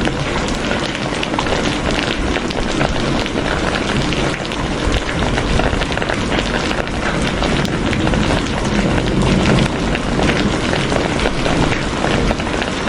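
Steady, heavy rain falling, dense patter of drops on a surface.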